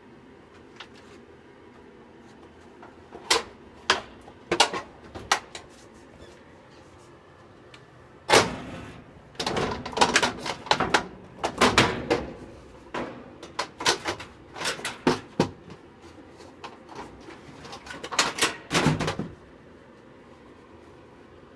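Clicks, knocks and clattering of a washing machine lid being handled and fitted. A few separate knocks come first, then a long, busy run of sharp clacks and bangs that stops a couple of seconds before the end.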